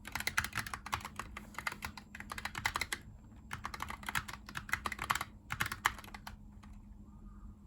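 Typing on a Razer Huntsman Tournament Edition keyboard with linear optical switches: fast runs of key clicks with a short pause about three seconds in, a few last strokes near six seconds, then the typing stops. A low steady hum lies underneath.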